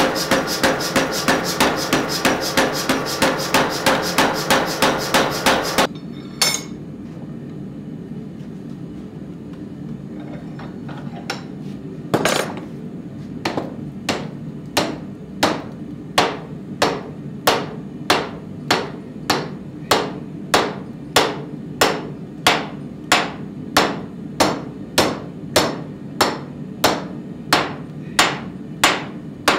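Power hammer striking red-hot steel in fast, even blows, about three to four a second, stopping abruptly about six seconds in. Then a hand hammer strikes glowing steel clamped in a vise, first a few scattered blows, then a steady beat of a little over one blow a second, bending the axe collar, over a steady low hum.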